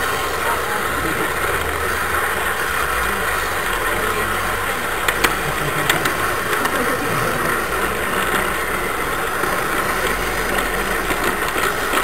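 Garden-scale model train running along its track: a steady rolling hum of motor and wheels on the rails, with a couple of sharp clicks about five and six seconds in.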